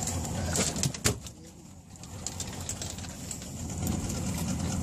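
A steady low rumble on the boat, broken by a sharp knock about a second in, as a freshly landed jack is handled on the deck.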